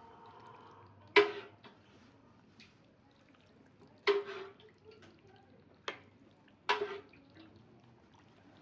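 Four separate sharp knocks, each followed by a short ring, spaced one to three seconds apart, like hard items being set down or dropped into a container.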